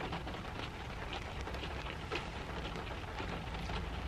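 Rain pattering on the roof and windows of a car, heard from inside the cabin: a steady spread of small drop ticks over a low rumble.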